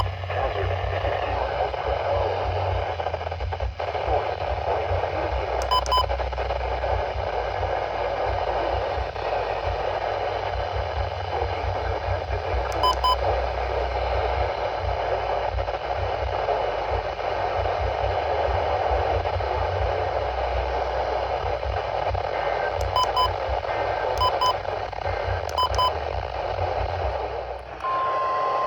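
Weather radio receiver hissing with static, broken five times by brief double beeps. Near the end a steady single-pitch alert tone begins, the weather-radio warning alarm tone that opens an alert.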